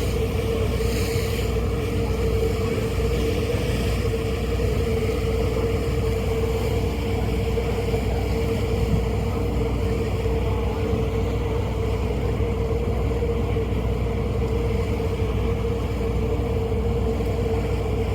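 Passenger ferry's engines and machinery droning steadily, a constant hum with one strong mid-pitched tone over a low rumble and a wash of wind and water noise.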